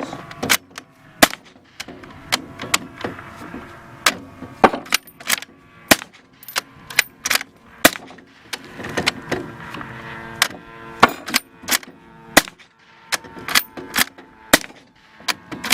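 Firearm fitted with a TE-Titan suppressor firing a long string of single shots, about two dozen sharp reports at an uneven pace of one to two a second.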